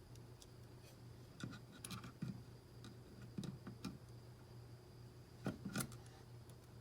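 Scattered sharp clicks and knocks of hard plastic computer parts being handled while fitting RAM, in small clusters with the loudest pair near the end, over a steady low hum.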